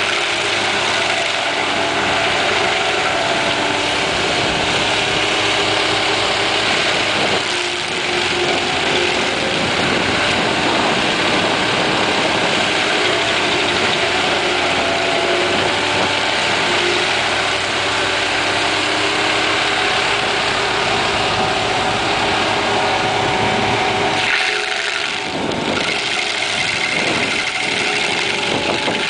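Hitachi excavator stump grinder running: its 200 hp second engine runs steadily under a dense high hiss, with a brief drop in the low end about 25 seconds in.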